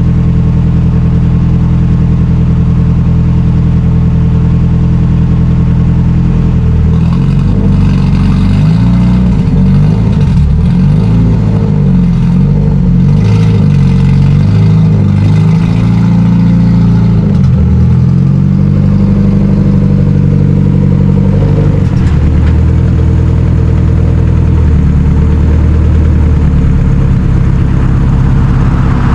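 Turbocharged Honda B-series four-cylinder engine, straight-piped through a side pipe, just started and warming up: a loud idle, with the revs rising and falling for several seconds in the middle before settling. Its exhaust note is one the owner first took for a misfire but puts down to the straight pipe.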